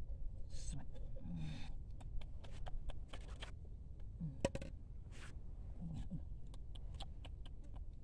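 Hands working a cord through a homemade scissors-and-stick bird trap: light rustling, with many small clicks and taps. A few brief low vocal sounds come through at intervals.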